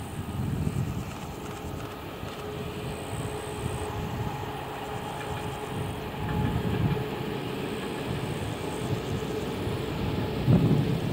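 ČD class 754 'Brejlovec' diesel-electric locomotive passing at a distance with a short rake of coaches: the diesel engine runs with a steady tone over the rumble of the train on the track. Wind buffets the microphone several times, loudest near the end.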